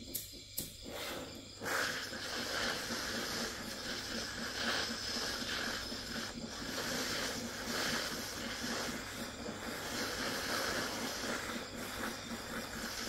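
A couple of sharp clicks, then a handheld gas torch lights about a second and a half in. Its blue flame hisses steadily as it heats a thin steel wire for a fishing hook.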